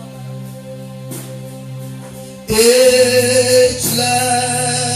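Gospel worship music with a male voice singing a slow, held line over sustained instrumental backing; the music swells louder about halfway through.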